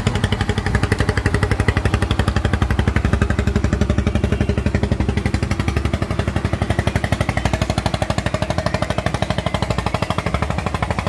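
Boat engine running steadily close by, with a fast, even chugging beat.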